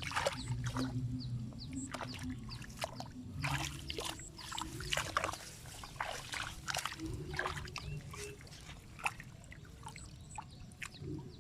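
Water splashing and trickling in irregular bursts, with many short sharp splashes, over a low steady hum.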